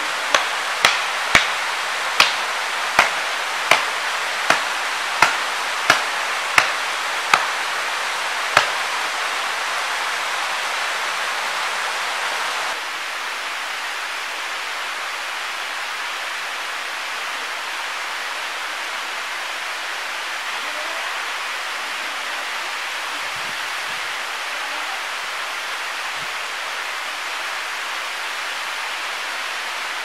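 About a dozen sharp chopping blows on wood, roughly two thirds of a second apart, over the first nine seconds, over the steady rush of a waterfall and stream. After that only the rushing water goes on.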